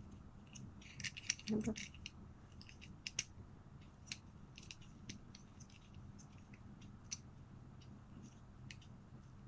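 Small plastic clicks and ticks, irregular and scattered, as a black plastic clip mount from a phone video kit is turned and fitted together by hand, over a faint low steady hum.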